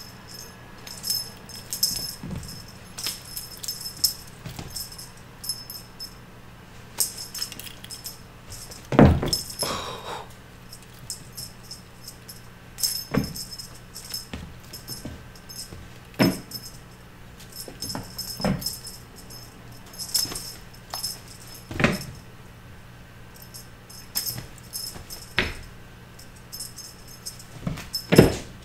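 A toy jingling in short, repeated bursts as it is shaken for kittens, with thumps of the kittens pouncing and landing, the loudest about nine seconds in. A steady low hum runs underneath.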